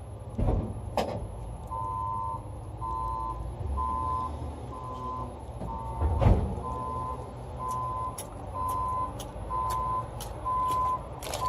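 An electronic warning beeper sounding short beeps about once a second, starting a couple of seconds in, with a few knocks and thuds over a low steady rumble.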